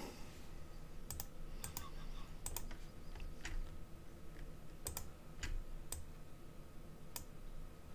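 Computer mouse buttons and keyboard keys clicking while layers are shift-clicked and selected: about a dozen short sharp clicks at uneven intervals, several in quick pairs, over a faint steady hum.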